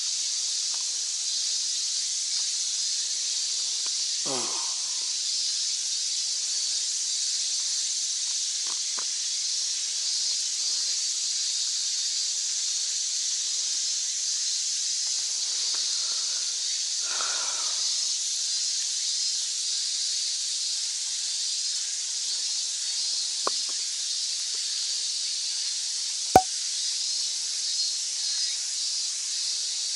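Steady, high-pitched buzzing hiss of a summer cicada chorus. A single sharp click comes near the end.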